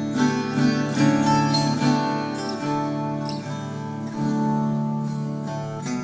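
Instrumental break in a song: acoustic guitar plucked and strummed, with notes struck about once a second over held chords.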